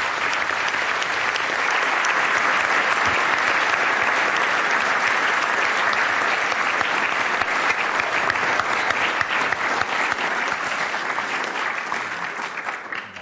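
Audience in a lecture hall applauding: steady, sustained clapping from many people that fades out near the end.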